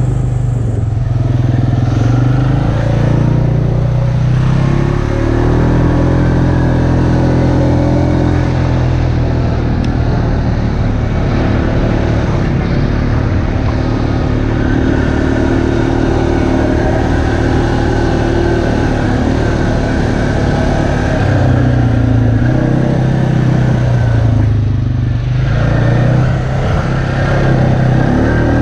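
ATV engine running under way, its pitch rising and falling as the throttle changes. Near the end it eases off, then picks back up.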